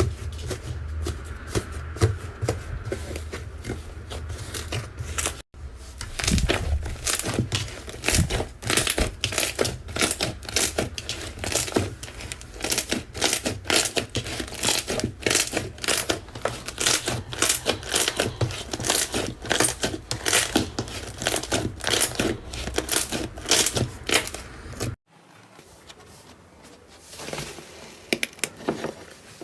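Slime being squeezed and worked, giving a dense run of sticky crackles and pops. The sound breaks off for an instant about five seconds in, then carries on, and near the end drops to much quieter, sparser handling sounds.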